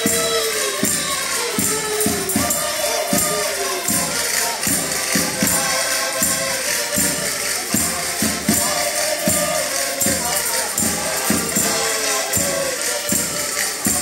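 Portuguese folk music: accordions playing a lively tune over a steady bass-drum beat, with a wooden scraper and jingling percussion keeping time and voices singing along.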